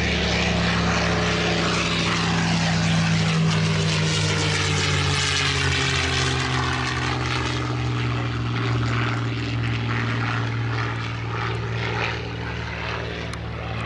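P-51 Mustang's V-12 piston engine running as the fighter flies past. Its pitch drops as it goes by, and it then fades slowly as the plane moves away.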